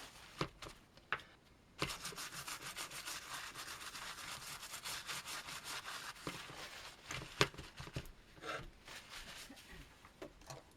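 Rapid scrubbing and rubbing on the underside of a circuit board while cleaning it, with a few light taps and clicks.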